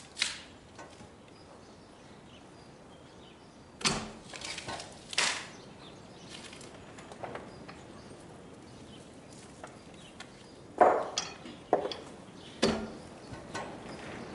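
Sharp knocks and scrapes of a steel cant hook on a black locust log, with the hook struggling to bite through the thick bark. They come in bursts, around 4 to 5 seconds in and again from about 11 to 13 seconds, the loudest near 11 seconds.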